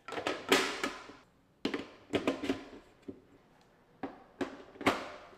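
Hard plastic parts of a hydroponic indoor garden clicking and knocking together as it is assembled: a cluster of taps near the start, then scattered single clicks, the sharpest near the end.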